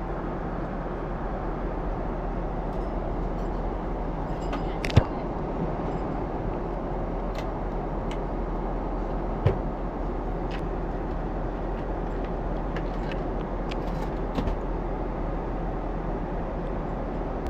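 Steady airliner cabin noise, a low even rush of engine and airflow with a deep hum. A few sharp clicks sound over it, the loudest about five seconds in and again about halfway through.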